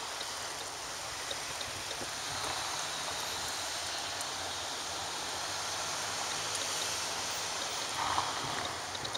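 Steady hiss of outdoor background noise with a low traffic rumble, and a car driving past close by about eight seconds in.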